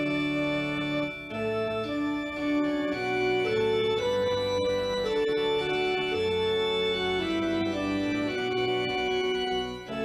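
Organ postlude: a slow melody of held notes over sustained chords, with short breaks between phrases about a second in and just before the end.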